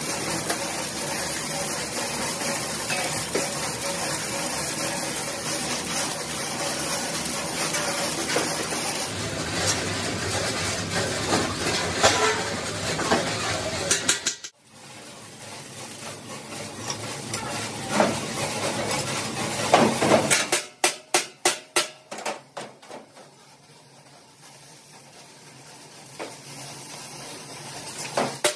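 Electric arc welding on a steel air-compressor tank: the arc's steady crackling sizzle, which cuts off about halfway through. Later comes a quick run of sharp hammer taps on the steel.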